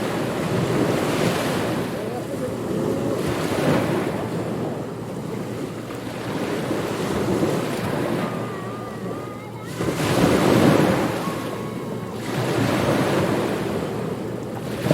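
Ocean surf, waves washing in and drawing back, the rush swelling and fading every few seconds, with the strongest surge about two-thirds of the way through.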